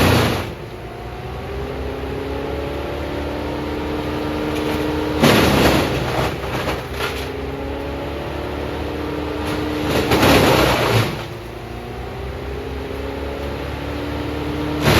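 Morbark M14 drum chipper running on its Perkins diesel engine, with three loud, harsh surges about five seconds apart as material goes through the drum. After each surge the engine pitch climbs back up as the drum recovers speed.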